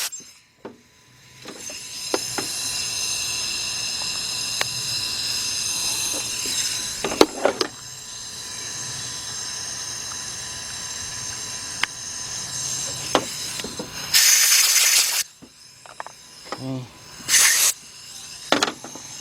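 Compressed air from an air blow gun, hissing steadily with a high whistle, then weaker, with short loud blasts about halfway through and twice near the end, blowing debris out of the ignition coil wells.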